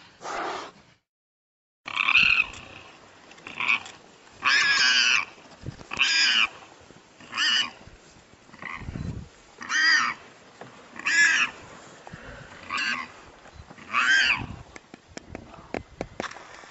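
Warthog squealing in distress as a leopard holds it: about ten short, high-pitched squeals, each rising and falling in pitch, repeating roughly every second and a half.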